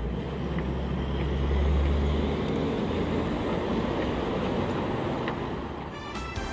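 Six-trailer ore road train passing close by: a deep engine rumble, loudest about two seconds in, over the steady noise of its many wheels on the road, easing off near the end.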